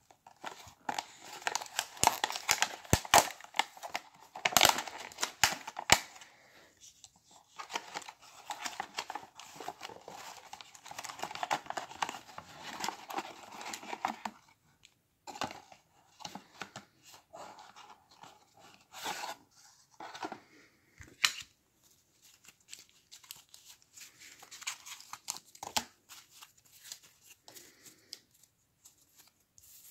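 A cardboard trading-card box with plastic wrapping being torn open, a dense run of tearing and crinkling for about the first fourteen seconds. After that come sparser rustles and taps as a stack of trading cards is taken out and handled.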